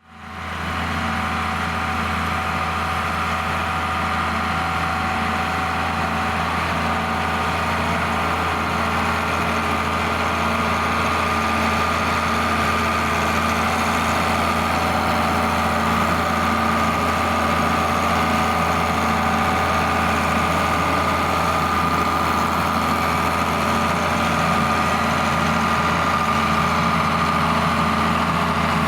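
John Deere 4850 tractor's six-cylinder turbo diesel running steadily, with a deep hum and a faint steady whine above it, fading in at the start.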